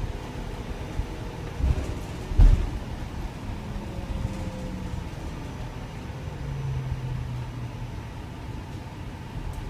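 Low cabin rumble inside a BYD/Alexander Dennis Enviro400EV battery-electric double-decker bus, with two heavy thumps about two seconds in, the second the louder. Faint hums slide slowly in pitch later on.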